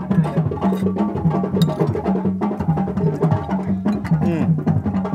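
Rhythmic percussive music: short, wooden-sounding struck notes in a steady beat over a repeating low melodic pattern.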